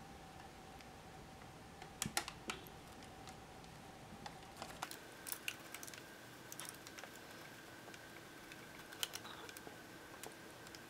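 Faint, scattered light crinkles and clicks of parchment paper being handled as melted crayon is poured from it into a silicone ice cube tray mold, over a faint steady hum.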